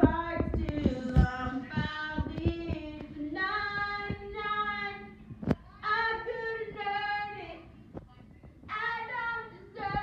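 A high voice singing in four phrases of held, wavering notes separated by short pauses. Scattered knocks come early on, and a single sharp click sounds about five and a half seconds in.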